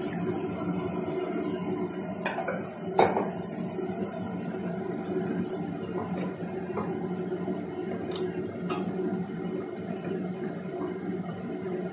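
Mint and spice paste cooking in a pressure cooker, stirred with a wooden spatula, with scattered knocks and scrapes of the spatula against the pot. At the start, rinse water from the mixer jar is poured in.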